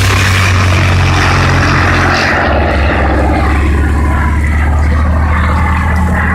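P-51D Mustang's Packard Merlin V-12 engine and propeller running loudly in flight, a steady low engine note. A rushing hiss over the engine note eases off about two and a half seconds in.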